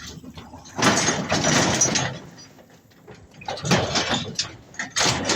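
A vehicle travelling over rough farm ground: uneven bursts of rattling and rumbling noise that come and go.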